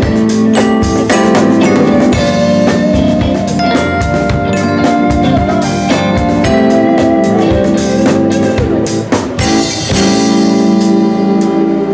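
Live band playing: drum kit, electric guitar and saxophone over sustained chords. The drum beats stop about ten seconds in, leaving a held chord ringing.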